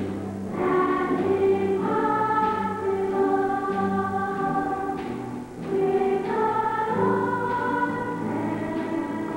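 A school choir singing the finale of a school musical, in long held notes that change pitch every second or so, with a short drop in volume about five and a half seconds in.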